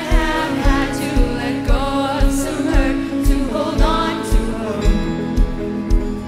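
Live contemporary worship music: a woman sings the lead melody into a microphone in long held phrases over acoustic guitar and bass guitar, with a steady low beat about twice a second.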